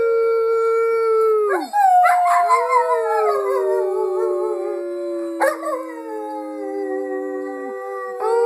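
A dog howling: one long, held howl breaks off, then a new one starts, wavers and slowly slides down in pitch for several seconds. Another howl starts near the end.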